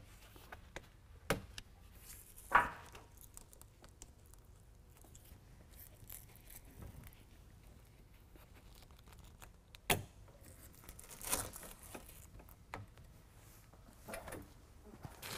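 A Jeep soft top's fabric being worked loose by hand from the rear bow: three sharp pops, the loudest about two and a half seconds in, then rustling of the top's fabric near the end.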